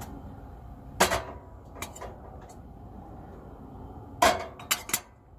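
Metal cookware clanking on a two-burner camp stove as the kettle and pan are handled: a sharp knock about a second in, two lighter ones around two seconds, and a loud cluster of three near the end, over a steady low hiss.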